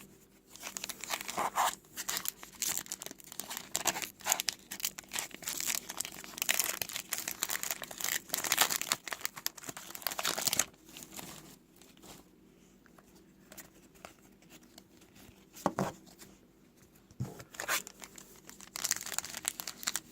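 Trading-card pack wrapper being torn open and crinkled by hand, in dense crackling for about ten seconds, then quieter with a couple of short clicks, then crinkling again near the end.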